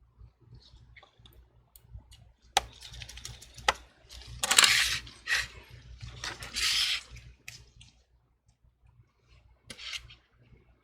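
Small tools and iPhone parts handled on a workbench: scattered sharp clicks and taps, with two louder bursts of rustling about midway and a shorter one near the end.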